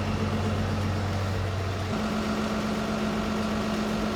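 Vehicle engine idling with a steady hum whose pitch steps up about two seconds in.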